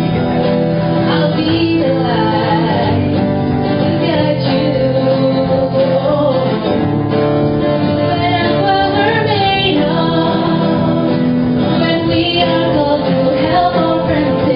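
A group of men and women singing a song together, accompanied by acoustic guitar.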